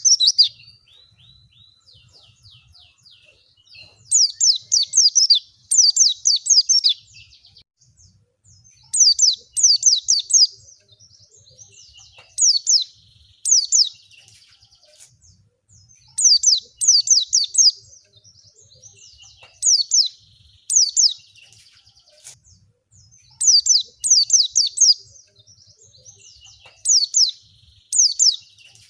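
White-eye (pleci) song: short bursts of rapid, high chirps, each burst a quick run of falling notes, repeated every one to three seconds. It is a lure recording meant to set other white-eyes singing.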